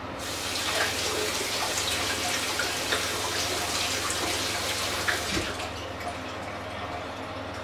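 Kitchen tap running into a stainless-steel sink while something is rinsed under it, with a few light clinks. The flow stops about five and a half seconds in.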